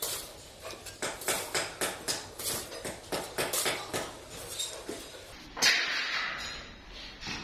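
Irregular sharp knocks and clatter of metal being handled or struck, a few a second, with a short burst of noise about five and a half seconds in.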